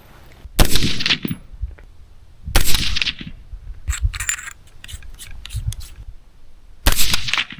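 Three AR-15 rifle shots, about two seconds and then about four seconds apart, each dying away briefly. The rifle is being fired at a paper target at 100 yards to sight it in.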